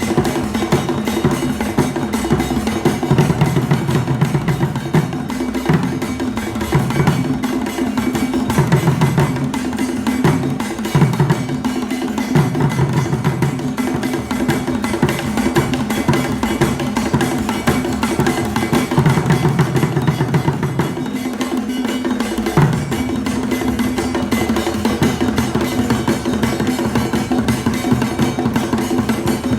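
Kete drum ensemble playing, a dense interlocking rhythm of hand-and-stick drums with a sharp wooden or bell-like timeline on top.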